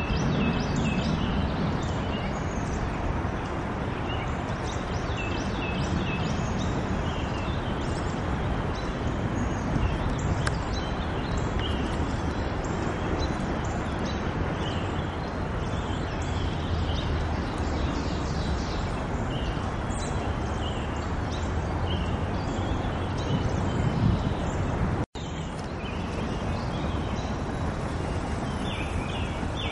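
Small songbirds chirping again and again over a steady low background rumble, with the sound dropping out for an instant about 25 seconds in.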